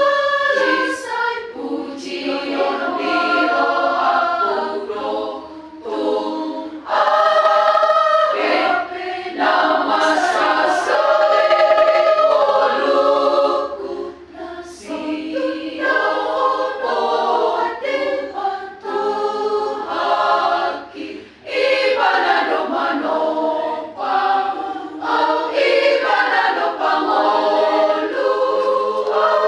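A choir singing in phrases, with short breaks between them.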